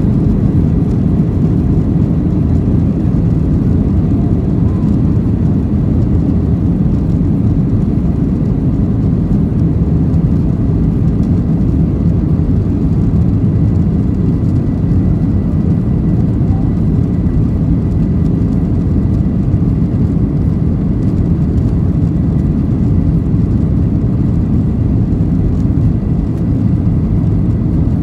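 Cabin noise inside a Boeing 737-800 taxiing: its CFM56-7B engines at low, steady taxi thrust, heard as an even deep rumble with a faint high steady whine over it.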